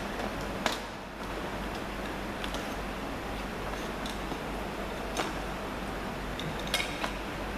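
A handful of sharp plastic clicks and taps as a white plastic scoop is worked into a tub of VPS putty impression material, two of them close together near the end, over a steady room hiss and low hum.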